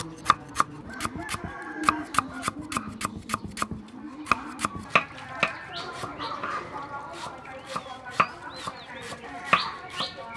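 A large cleaver slicing lemongrass on a wooden chopping board: a steady run of sharp knocks, about three a second.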